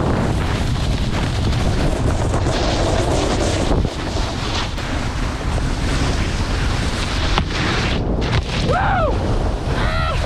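Wind buffeting the microphone of a camera carried at speed down a ski slope, over the hiss of snowboards sliding on packed snow. Near the end come two brief rising-and-falling voice calls.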